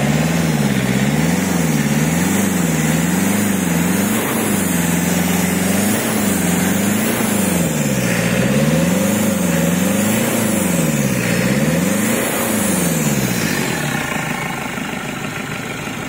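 Turbocharged Toyota 2C four-cylinder diesel engine revved up and down over and over, its pitch rising and falling about once a second, with a faint high whistle following the revs. The turbo has just been fitted.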